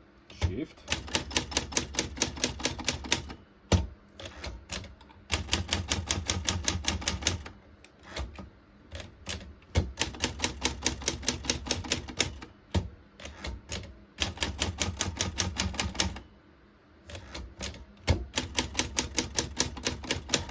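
1959 Everest K3 portable typewriter being typed fast: runs of rapid key strikes, about nine a second for a couple of seconds at a time, with short pauses and a few single sharp strikes in between.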